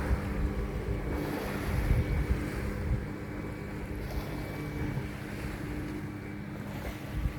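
Small motorboat engine running at a steady hum while the hull moves through water, with wind buffeting the microphone.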